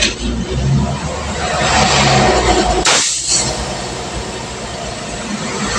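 Road noise from riding along a highway: a vehicle engine hum under a rushing of wind and tyres, swelling loudest for a second or so about two seconds in.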